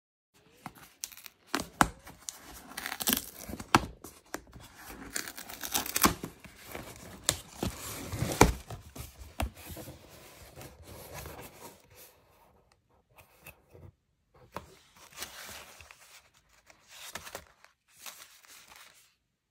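Packaging being handled, crinkled and torn in irregular rustling bursts with sharp clicks, growing sparser and quieter after about twelve seconds.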